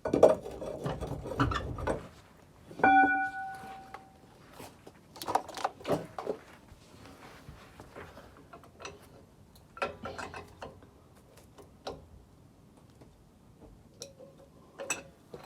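Metal tools clattering and knocking on metal, with one ringing metallic clang about three seconds in and scattered clinks after.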